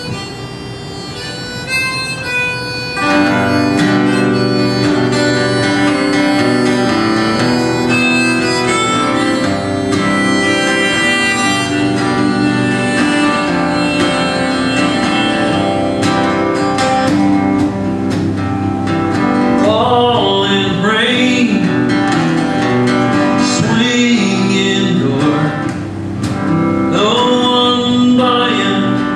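Song intro on a harmonica played from a neck rack and a strummed acoustic guitar. The harmonica plays alone at first, and the guitar comes in about three seconds in, making the music louder and fuller.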